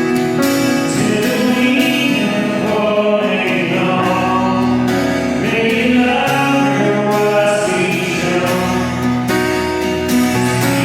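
Church music: voices singing over long, held instrumental chords.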